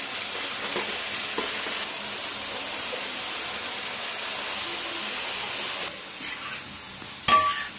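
Hot ghee and whole spices sizzling in a large metal pot as raw long-grain rice is poured in from a steel bowl and scraped in with a spoon, with a few small clicks of grains and spoon. The sizzle eases about six seconds in, and a short sharp knock comes near the end.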